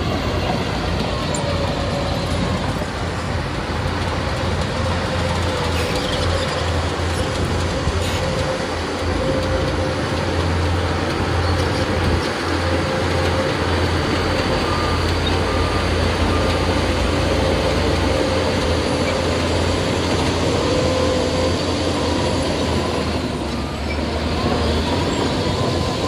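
Bulldozer's heavy diesel engine running steadily: a constant low drone with a thin, wavering whine above it.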